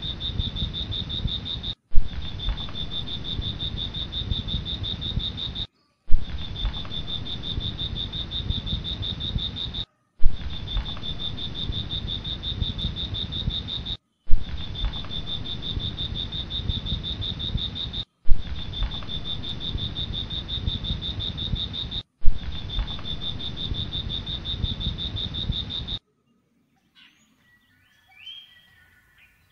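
Steady high-pitched insect trill over low rumbling noise, looped as a short clip: it breaks off and restarts with a loud click about every four seconds. It stops about 26 seconds in, leaving near silence with a faint chirp or two near the end.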